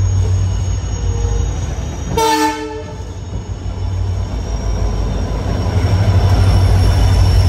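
Passenger train running at speed, a steady low rumble from the rails and coach, with a short horn blast about two seconds in.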